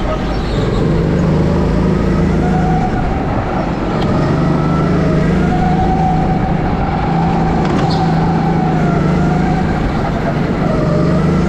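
Racing kart's motor running hard, a continuous tone whose pitch rises and falls as the kart speeds up and slows for the corners.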